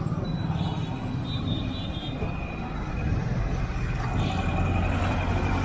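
Street traffic: motorcycle engines and other vehicles running past close by, a continuous rumble that swells slightly as vehicles come near.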